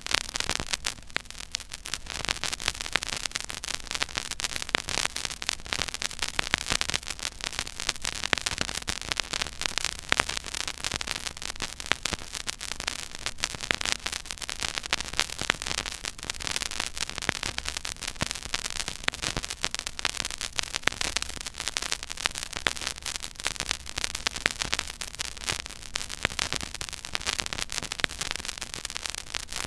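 Stylus tracking the silent groove of a 12-inch vinyl record at 33⅓ rpm: steady surface noise, a dense, irregular crackle of clicks and pops over a soft hiss, with some low rumble.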